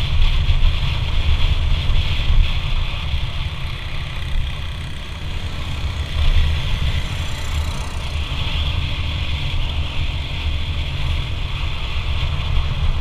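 Motorcycle engine running while riding, with heavy wind buffeting on the microphone.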